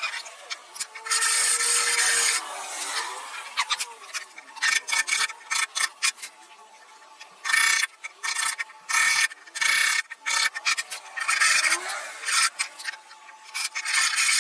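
Hand rasp rubbing across the curved end grain of a wooden block in repeated push strokes: some long strokes, and in the middle a quick run of short ones.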